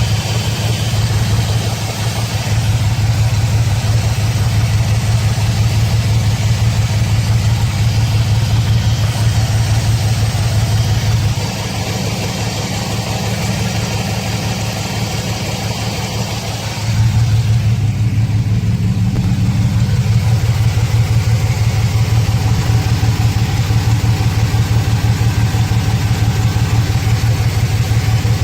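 A 2006 Chevrolet Silverado's 4.3-litre V6 idles with a steady low pulsing hum, quieter for about five seconds midway, then back to its earlier level. The engine runs rough with a cylinder 5 misfire (code P0305) alongside an injector circuit fault (code P0200).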